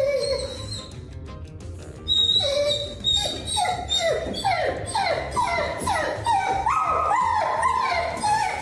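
A dog giving a rapid series of short, high whining yelps, each falling in pitch, about two a second, starting about two seconds in, with background music.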